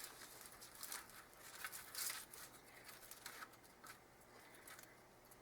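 Faint crunching of a tortilla-chip nacho being bitten and chewed: a scatter of small crisp crackles that thin out after about three seconds.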